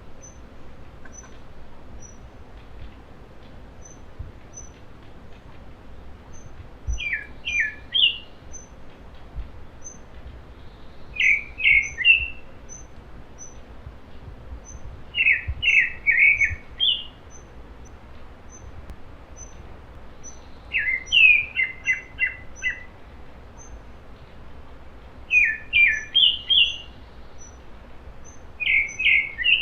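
Wild mountain songbirds singing. One bird repeats a short burst of several quick, rising-and-falling notes about every four to five seconds, while thin, high single peeps repeat steadily in between.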